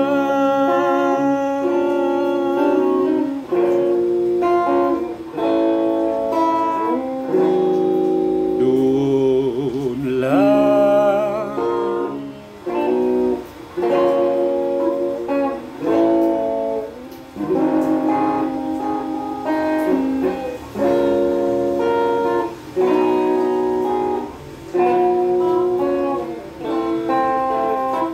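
Electric guitar playing the slow instrumental close of a Filipino love ballad, in chords and held melody notes phrased every second or two. A man's voice holds a sung note at the start.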